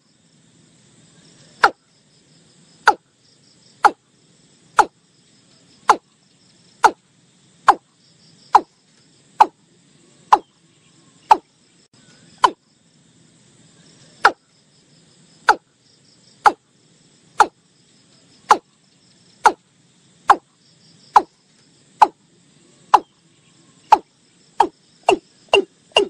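Watercock calling: a long series of short notes, each falling in pitch, about one a second, coming faster near the end.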